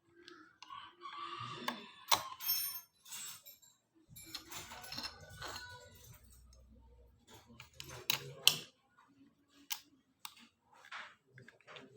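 Small metal tools and parts being handled: scattered light clicks and metallic clinks with rustling between them, the loudest two clinks close together about eight seconds in.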